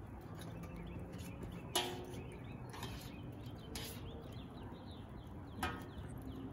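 A few sharp clanks of tongs against a carbon steel wok as chicken fajitas are stirred, the loudest about two seconds in, some with a brief metallic ring.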